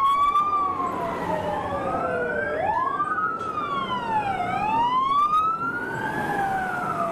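Sirens of several airport fire trucks wailing together. Each rises and falls slowly, and they overlap out of step with one another.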